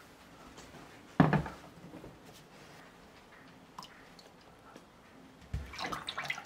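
A single thump about a second in, then near the end a low thud and a run of splashing as a rubber-gloved hand plunges into and swishes water in a plastic basin.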